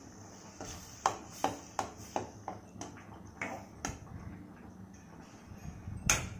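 Steel ladle clinking and scraping against a stainless steel kadai while stirring water into a curry, about two or three sharp metallic clinks a second for the first four seconds. A single louder clink comes near the end.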